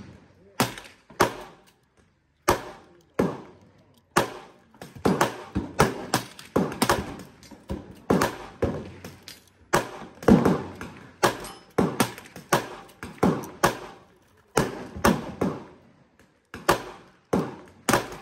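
Gunshots from other shooters along the firing line: sharp reports at an irregular pace of about one to two a second, each trailing off briefly.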